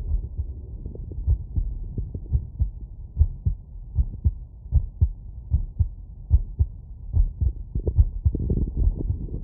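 Human heartbeat heard through a stethoscope, lying down after exertion: regular low lub-dub thumps, about one beat every 0.8 seconds.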